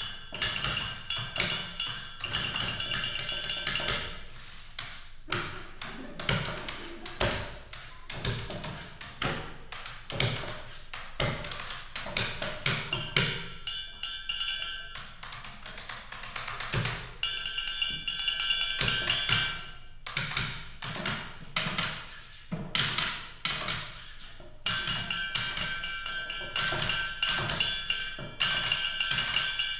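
A percussion trio playing office supplies (pencils, a plastic water bottle and a computer keyboard) as instruments: dense, rhythmic tapping and clicking. At times a steady high ringing tone runs under the taps.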